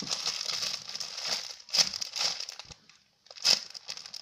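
Crinkling and rustling from hands handling and squeezing a squishy toy, in irregular bursts. It stops for a moment about three seconds in, then one sharp crinkle follows.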